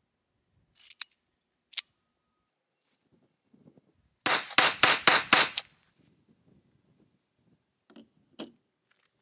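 Colt 1908 Vest Pocket .25 ACP pistol fired six times in rapid succession, six sharp shots in just over a second. A few metallic clicks come from handling the pistols before the shots, and two more come near the end as the gun is set down.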